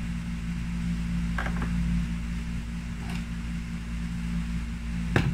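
Steady low electrical or fan-like hum of the room, with a couple of faint brief sounds and a sharp click near the end.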